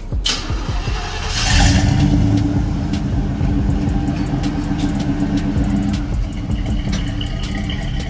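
Pickup truck engine revved up about a second and a half in and then held at a raised, steady speed, heard from behind through a single knockoff Flowmaster 10-series-style muffler on a newly fitted single exhaust. The engine eases off slightly near the end.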